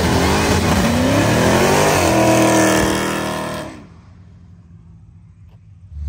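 A car accelerating hard away, its engine revs climbing, then climbing again about two seconds in. The engine sound drops away quickly a little under four seconds in.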